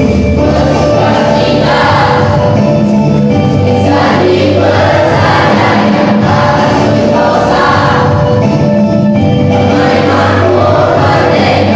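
Mixed school choir of boys and girls singing in parts under a conductor, holding sustained chords with swelling phrases.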